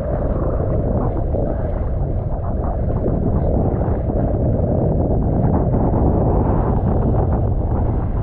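Strong wind buffeting the microphone of a GoPro action camera at water level, a loud, steady low rumble, mixed with choppy sea water splashing and rushing against it.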